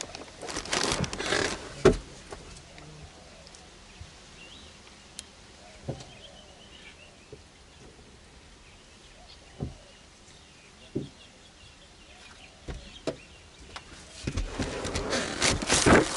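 Rustling and handling noises, loudest in the first two seconds and again in the last two. In the quiet stretch between come a few single clicks and knocks.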